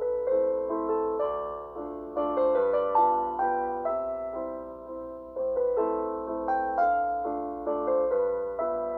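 Background piano music: a melody of struck notes over chords, each note fading after it is played.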